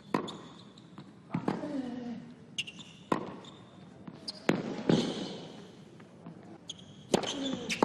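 Tennis rally: a ball struck back and forth with rackets, a sharp pop about every one and a half seconds, some shots followed by a player's grunt, and brief high squeaks of shoes on the hard court.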